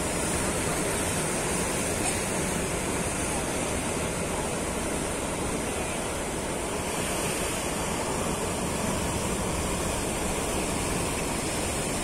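Large ocean waves breaking on the shore: a steady, even wash of surf.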